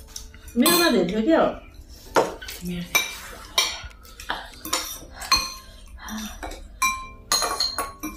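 Metal forks and spoons clinking and scraping against ceramic bowls and plates while eating, a long run of separate clinks, many with a short ringing tone. A brief vocal sound comes about a second in.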